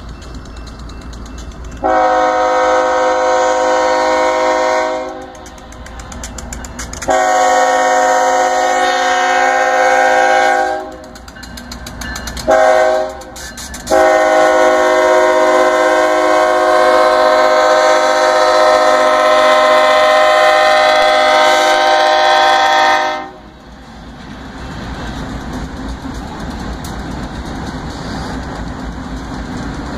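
BNSF diesel locomotive's air horn sounding the grade-crossing signal: two long blasts, one short, then a final long blast of about nine seconds. After that the locomotives' diesel engines and wheels rumble past on the rails.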